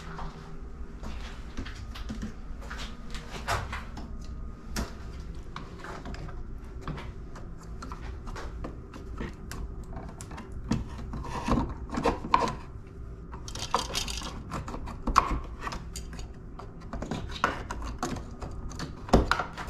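Scattered clicks, taps and rubbing as wires and meter test leads are handled at an open outlet box, with a brief rustle about two-thirds of the way in. A steady low hum runs underneath.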